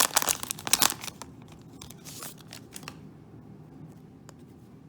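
Trading cards being handled and flipped through, a run of dry rustling and crinkling strokes for about the first second, a few more around two seconds in, then faint handling.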